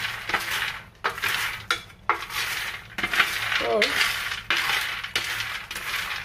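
Roasted peanuts rattling and scraping across a metal baking tray as a wooden spatula stirs and tosses them, in repeated sweeps about once a second.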